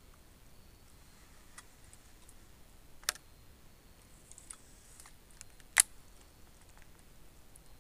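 A few scattered sharp clicks and ticks against a quiet background, two of them louder, about three and six seconds in.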